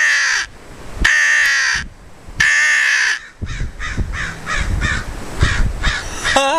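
Lohman crow call blown in three long, loud, reedy caws, followed by a quicker run of shorter, fainter caws. Wind rumbles on the microphone underneath.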